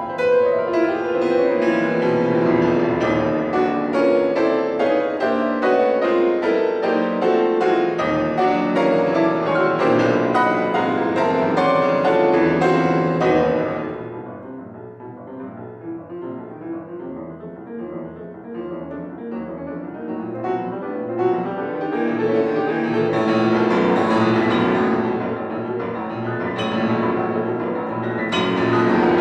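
Piano playing classical music: a loud, dense passage of fast notes breaks off about halfway into a soft, quieter passage, which then builds back up to loud near the end.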